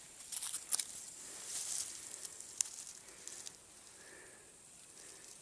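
Footsteps rustling and crackling through dry forest undergrowth, with several sharp snaps, going quieter after about three and a half seconds.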